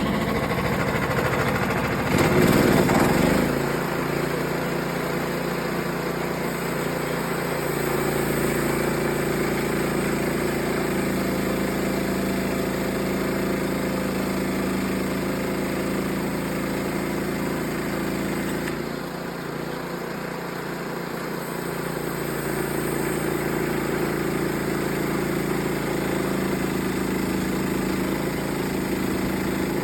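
Small gasoline engine of a portable sawmill running steadily while shingles are being cut. It is louder for about a second near the start and eases off for a few seconds past the middle.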